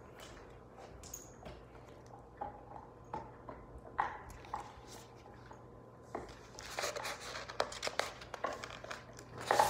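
Hardcover picture book being handled: a few soft taps and knocks, then paper rustling and page handling from about six seconds in as the book is lowered and a page is turned.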